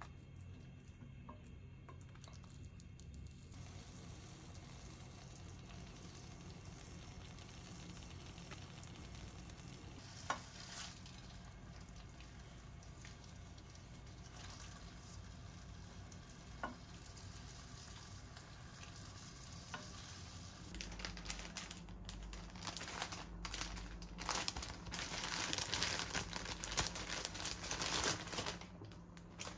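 Fish slices in a thick sweet-and-sour sauce sizzling in a frying pan while they are stirred and turned with tongs, with a couple of sharp clicks. Louder handling noise comes in for the last several seconds.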